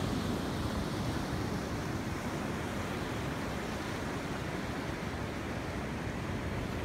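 Ocean surf washing steadily onto the shore: an even rushing noise with no single wave break standing out.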